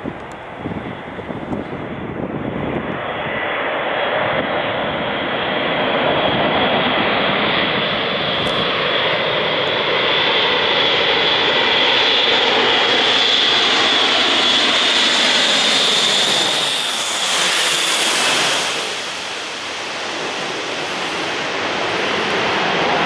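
Airbus A400M Atlas's four TP400-D6 turboprop engines on a low approach: a steady high propeller whine builds as the aircraft nears and peaks in a whooshing rush of air as it passes over about 17 seconds in, then eases as it climbs away.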